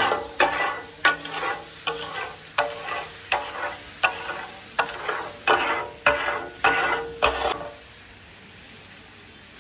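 Two metal spatulas clattering on a hot flat iron tawa griddle, chopping and tossing chicken katakat in a steady rhythm of about two strokes a second over a sizzle. The clatter stops about three-quarters of the way through, leaving the sizzle.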